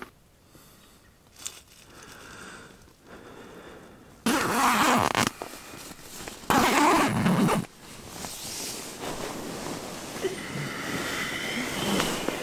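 Sleeping bag zipper pulled twice, two loud zips about a second each, a few seconds in. Then a quieter, steady rustle of the nylon sleeping bag and pad as the sleeper turns over.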